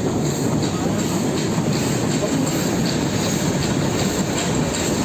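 Train running along its rails: a steady rumble with faint, repeated wheel clicks.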